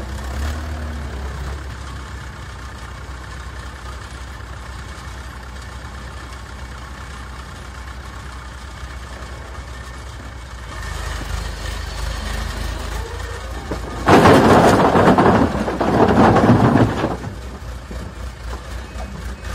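Backhoe loader's diesel engine running steadily, then revving harder as the front bucket is raised. About two-thirds of the way through, a loud rattling clatter in two bursts as a bucketful of concrete blocks is tipped into a steel tractor trolley.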